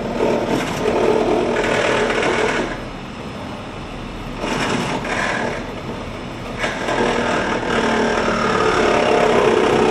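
An engine running with a fast mechanical rattle, swelling and easing in loudness a few times.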